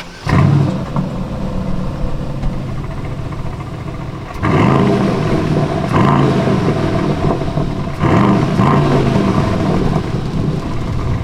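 Aston Martin DBX707's twin-turbo V8 running loudly: it flares up suddenly about a third of a second in, settles, then surges louder three times from about four and a half seconds on.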